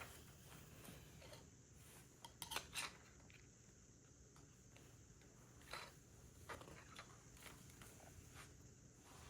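Plastic LEGO bricks being handled and pressed together: scattered sharp clicks, the loudest few close together about two and a half seconds in, and single clicks around six seconds, over faint room tone.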